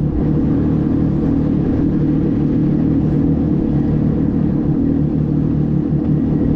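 Boat motor running steadily under way, with an even, unchanging drone.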